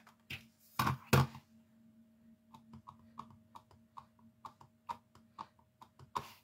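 Clear acrylic stamp block tapped repeatedly onto a Stampin' Pad ink pad to ink the stamp: a quick run of light taps, about five a second, after a couple of louder knocks about a second in.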